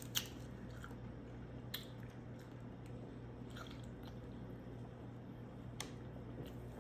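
Quiet chewing with a few sharp mouth clicks, over a steady low hum.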